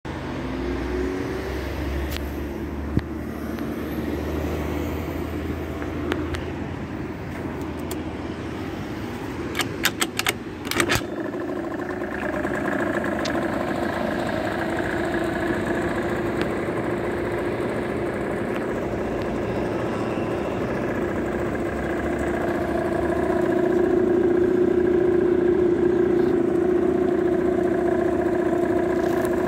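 Aprilia SR 50 Motard scooter's small air-cooled two-stroke engine. A few sharp clicks come about ten seconds in as it is started, then it idles steadily, a little louder near the end. Before the start there is a low background rumble.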